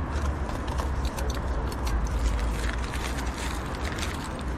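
Outdoor street background noise: a steady low rumble with short clicks and rustles scattered through it.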